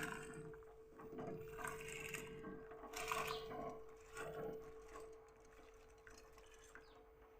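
Rice being added to a pot of water to soak, with water splashing and sloshing in a few short bursts that die away about halfway through. A faint steady hum runs underneath.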